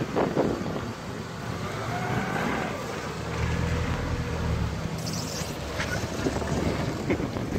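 Subaru Legacy's flat-four engine running as the car drives slowly past at close range, its low hum growing louder about three seconds in as it draws level.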